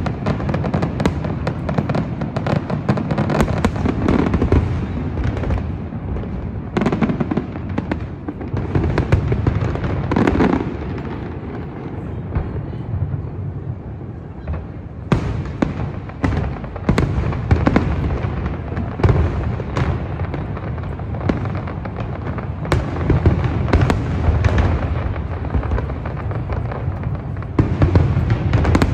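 Aerial fireworks display: a continuous low rumble of booms with many sharp bangs and crackles from bursting shells. It eases off for a few seconds about halfway through, then the bangs come thick again, with a loud flurry near the end.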